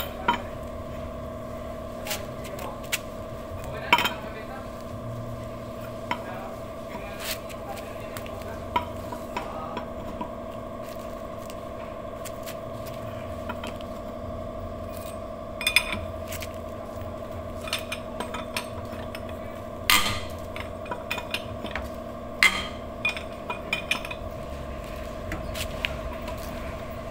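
Scattered metal clinks and clicks of a lug wrench on a wheel's lug nuts as the wheel is tightened back onto the hub, with a few sharper knocks, over a steady hum.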